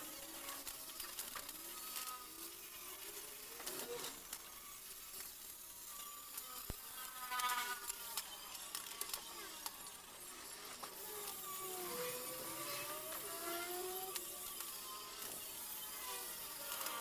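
Hammer taps and clanks on steel square tubing as a table frame is fitted together, with a welding arc crackling near the end.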